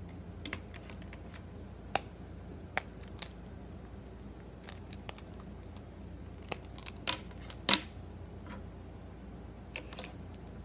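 Simple Dimple fidget toys being popped one after another, their push-buttons giving sharp clicks at irregular intervals. One click about three-quarters of the way through is much louder than the rest.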